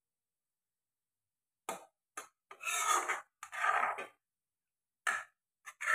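Spatula scraping and stirring through thick mustard-paste fish gravy in a kadai: a series of short rasping strokes against the pan, starting just under two seconds in.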